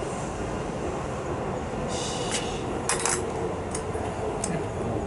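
Several light metallic clicks and clinks from about two seconds in, as a small cap and fittings are handled and fitted on a Suzuki TS185ER's carburetor area, over a steady low rumble.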